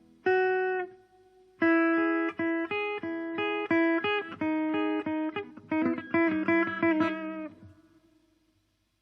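Guitar played through a transistor circuit under test: one plucked note, then a melodic run of single picked notes lasting several seconds, ringing out and fading near the end.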